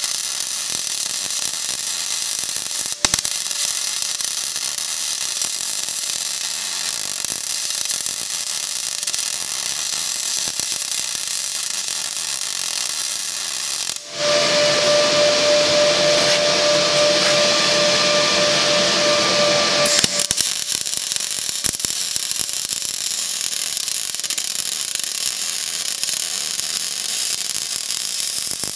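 MIG welding arc on cast iron, running steadily with a brief break about three seconds in. Midway, for about six seconds, it turns into a louder, steadier buzz with a clear tone, then the earlier sound returns.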